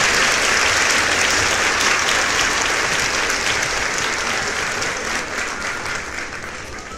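Applause: dense, steady clapping from a crowd that slowly fades toward the end.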